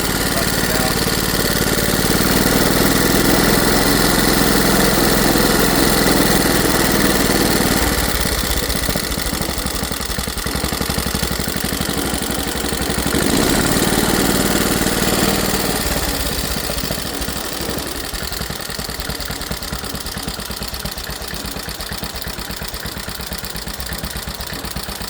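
Late-1930s Ironhorse washing-machine engine running. About eight seconds in its steady note changes to a slower beat of separate firings. It swells again briefly around the middle, then grows gradually quieter over the last third.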